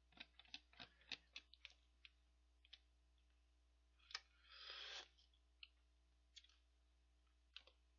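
Quiet close-miked eating of instant ramen noodles: a quick run of small wet chewing clicks, then one slurp just under a second long about four and a half seconds in, as noodles are sucked up from the cup's plastic lid, followed by a few more scattered clicks.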